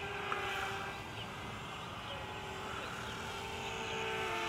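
Distant steady hum of the E-Flite X-VERT VTOL's electric motors and propellers in flight, the pitch dipping slightly near the end.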